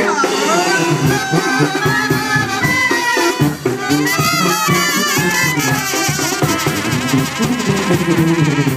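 Live Mexican brass band (banda) playing an instrumental interlude between sung verses of a corrido: clarinets and trumpets carry the melody over drums, with fast clarinet runs.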